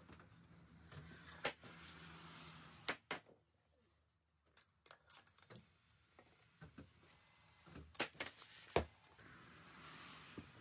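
Scattered knocks and clatter of a large sheet of board being handled and footsteps on a board floor, with tools on a carpenter's tool belt jangling. The loudest knocks come near the end.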